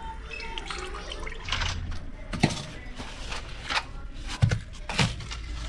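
Water splashing and dripping in a bucket as roasted eggplants are washed and squeezed by hand, in irregular splashes.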